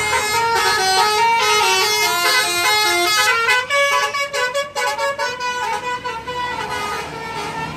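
Multi-tone telolet horn on a tour bus playing a basuri melody: a run of stepped notes, then quick short notes around the middle, growing softer near the end.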